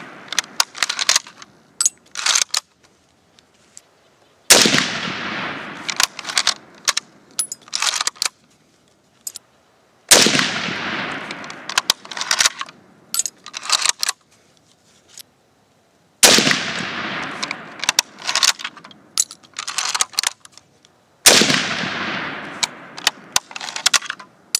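Tula M44 Mosin-Nagant bolt-action carbine in 7.62x54R fired four times, about every five to six seconds, each shot fading out over a second or two. After each shot comes a quick run of sharp metallic clicks as the bolt is worked to eject the case and chamber the next round.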